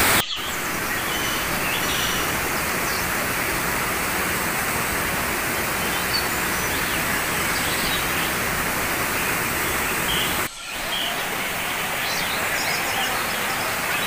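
Waterfall rushing steadily over rocks, with a few faint bird chirps above it. The sound breaks off for a moment about ten seconds in, then carries on.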